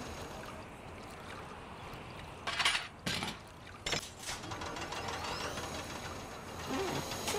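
Cartoon sound effect of a motorized window-washing platform moving on its cables: a steady mechanical whir and rattle, with a few sharp clanks about two and a half to four and a half seconds in.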